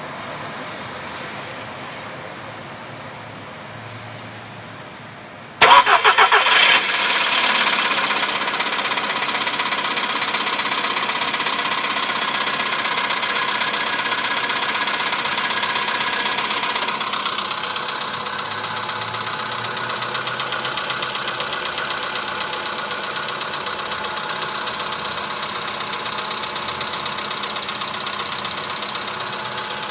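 An engine starts abruptly after a few seconds of steady hum, revs up briefly as it catches, then settles into a steady idle that eases down slightly a little past the midpoint. It is recorded to show a knock in the engine.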